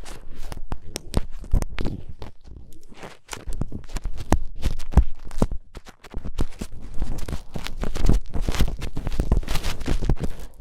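Ear-cleaning ASMR sounds: an earpick scraping and rustling close against a microphone's ear, a dense, irregular run of small clicks and scratches with brief quieter gaps about three and six seconds in.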